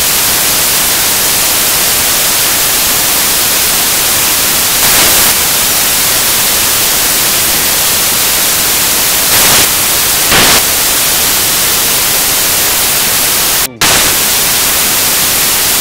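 Loud, steady white-noise static hiss, with a few brief louder swells in the middle and a momentary cut-out shortly before the end.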